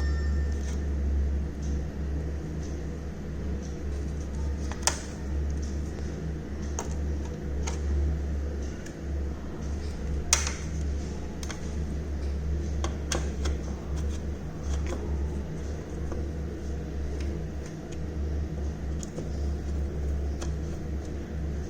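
A steady low hum, with scattered sharp clicks and taps; two louder clicks come about five and ten seconds in.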